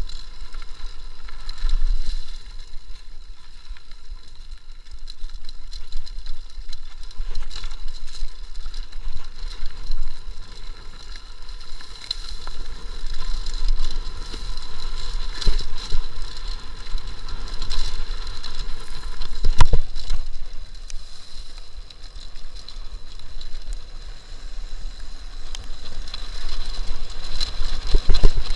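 Mountain bike coasting fast down a dirt trail: tyres running on dirt, wind rumbling on the microphone, and frequent rattling knocks as the bike goes over bumps.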